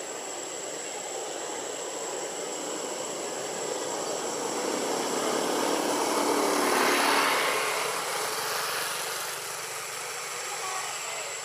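Engine noise of a passing vehicle, swelling to its loudest about seven seconds in and then fading away.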